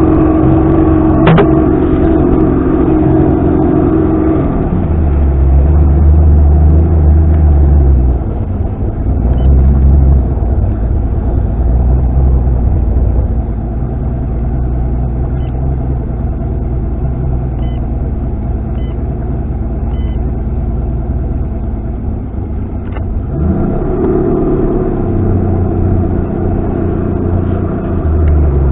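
Outboard motor running steadily under way. It is throttled down about four to five seconds in, then revs up again with a rising pitch near the end.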